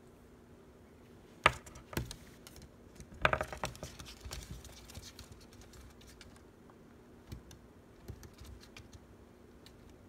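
Scattered small clicks and taps: two sharp ones about one and a half and two seconds in, then a short crackly cluster around three seconds in, thinning out to faint scattered ticks over a low steady hum.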